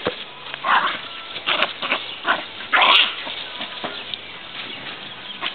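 A dog barking: a run of short barks over the first three seconds or so, the loudest about three seconds in, then only quieter sounds.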